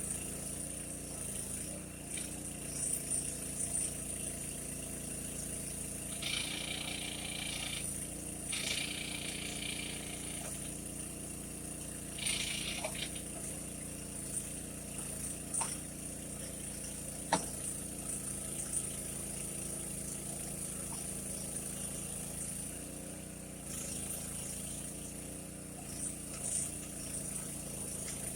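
Mini backhoe's small engine running steadily, with three high-pitched whining spells of one to two seconds each and a couple of sharp metallic knocks.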